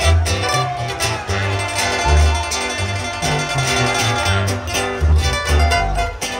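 Regional Mexican band music, instrumental with no singing: plucked guitar and string parts over a bass line of short repeated low notes.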